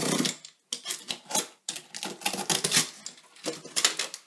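Packing tape being slit and ripped off a cardboard box, the flaps scraping and rustling, in a series of short tearing and crackling noises.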